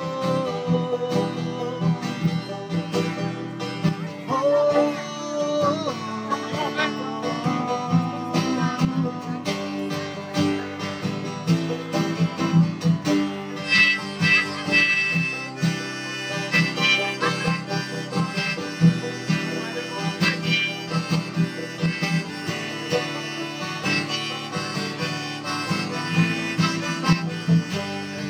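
Live acoustic band music: acoustic guitar and banjo strumming, with a held, bending lead melody over them.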